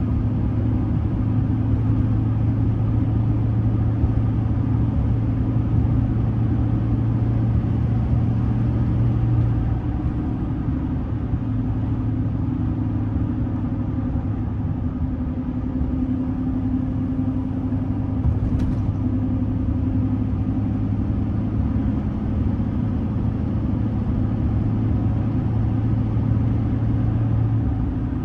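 Duramax 6.6L V8 turbodiesel of a 2006 Chevrolet Silverado 2500HD running steadily while the truck drives, a steady low drone of engine and road noise. One short faint click about two-thirds of the way through.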